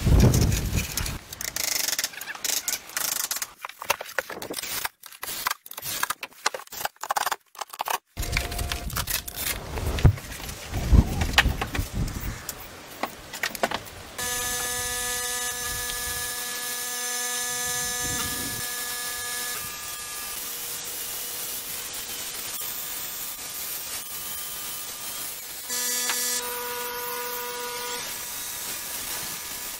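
Power tool work on wood: short, choppy bursts in the first half, then a motor running with a steady whine from about halfway on.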